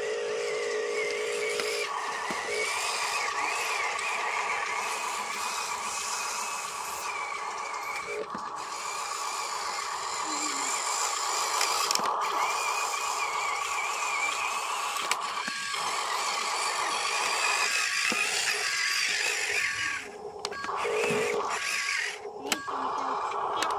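Small electric motors and gearboxes of radio-controlled Huina construction models whining steadily. The whine drops out and starts again a few times near the end.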